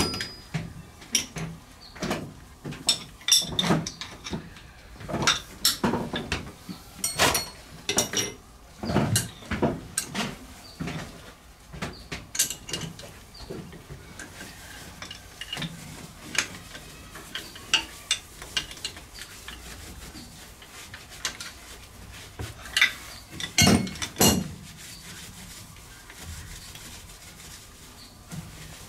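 Steel wrench clinking, tapping and scraping against the metal fittings of a stopped steam engine's low-pressure crosshead and wrist-pin bearing, in irregular clicks, busiest in the first dozen seconds. Later come two louder metal knocks close together.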